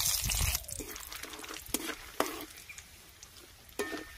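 Peanuts frying in hot oil in a metal kadai: loud sizzling that dies down about half a second in, then quieter frying with a few sharp clicks of a metal spoon stirring against the pan.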